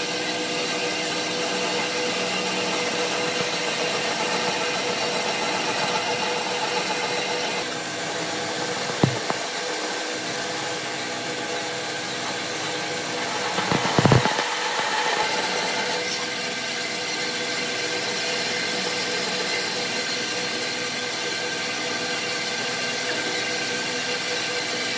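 Bandsaw running steadily as its blade cuts through a block of wood, with a short knock about nine seconds in and a louder brief clatter around halfway through.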